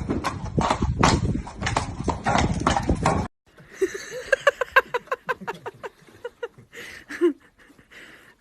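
Horse hooves clip-clopping in a quick, steady beat for the first three seconds, then cutting off. A horse then whinnies in a long, shaking call of rapid pulses, with one short call after it near the end.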